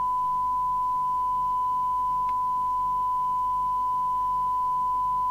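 Steady 1 kHz test tone from the Rotel RVC240 CB receiver's audio output: the signal generator's modulated test signal, set at 100 microvolts, demodulated by the radio during S-meter calibration. One constant pitch.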